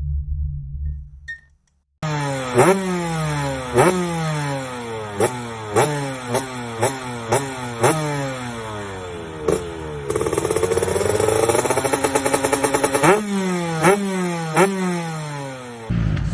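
TM Racing MX 125 two-stroke motocross engine ridden hard, with a series of sharp throttle blips, each a quick rise in pitch that falls away again, and a longer held pull in the middle. It comes in abruptly after a brief silence, following a fading steady tone.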